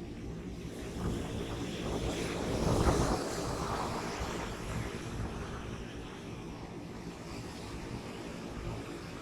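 Rough surf breaking on the beach, with a wave crashing loudest about three seconds in, and wind buffeting the microphone.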